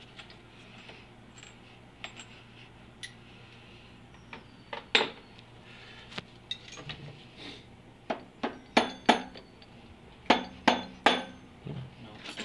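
Metal hand tools clinking and knocking, metal on metal with a short ring: a two-jaw puller and spanners handled and fitted to the crankshaft pulley. A couple of sharp clinks about five seconds in, then a quick run of clinks in the second half.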